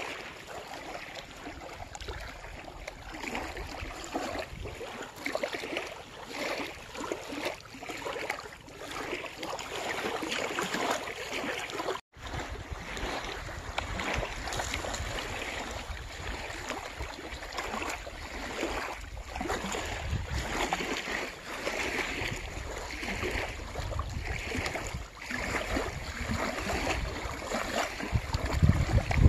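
Small waves lapping and washing at the water's edge, with wind buffeting the microphone in gusts, heavier in the second half.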